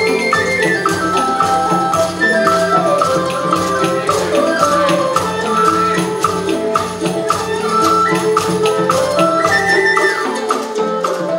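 Traditional Vietnamese instrumental music: melodic instruments play moving note lines over a steady beat of percussion strikes.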